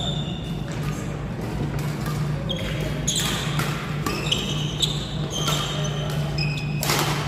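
Badminton rally on an indoor court: rackets striking the shuttlecock, mixed with short high squeaks of court shoes on the floor, over a steady low hum.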